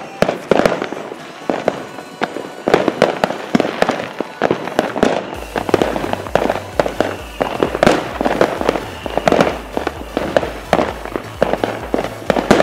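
Fireworks going off in quick succession: many sharp bangs and crackles, irregular and overlapping. About five seconds in, music with a pulsing bass line comes in beneath them.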